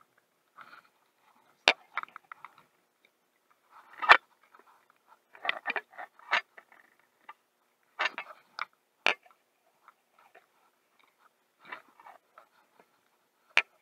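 Close handling noise of an angler's gear: irregular clicks, crackles and brief rustles of rain-jacket fabric and a baitcasting reel being handled, with a few sharper clicks among them.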